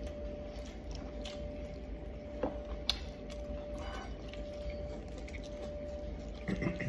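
Quiet eating by hand: chewing and fingers mixing rice on a plate, with a few light clicks, over a steady faint hum.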